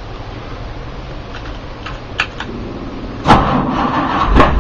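Keys clicking and jingling at the ignition, then the 1954 International Harvester truck's engine is started, catching near the end with a sharp pop (a little backfire) and settling into a steady low running rumble.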